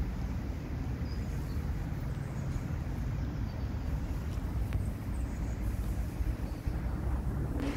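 Wind rumbling on the microphone over outdoor ambience, with a few faint, short, high chirps.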